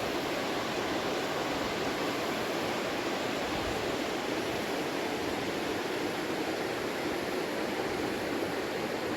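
Steady rushing of the Maligne River's white water through the canyon, an even, unbroken rush.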